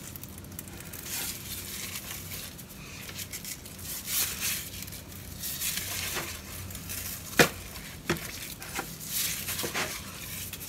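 Salt shaken from a canister onto a raw pig's head in a disposable aluminium foil pan and rubbed in with gloved hands: irregular swishing and crinkling, with a sharp knock about seven seconds in.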